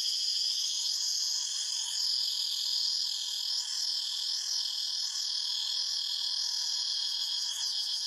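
Chorus of cicadas giving a continuous high, shrill buzz. Through the middle its pitch swells up and down in repeated waves.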